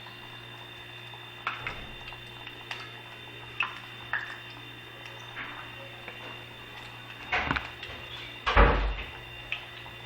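Scattered knocks and clicks of kitchen handling over a steady low hum, with a heavier thump about eight and a half seconds in.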